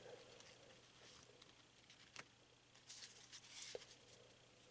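Near silence, with faint rustling and a couple of small clicks from trading cards being gathered and stacked by hand, the rustling loudest a little past the middle.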